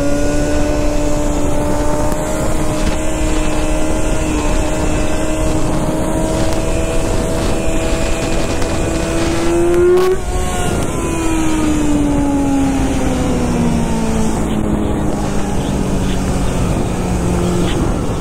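Dirt bike engine under way at road speed: its note holds and slowly climbs for about ten seconds, then falls steadily as the bike slows, and jumps up again near the end. A constant rush of wind runs underneath.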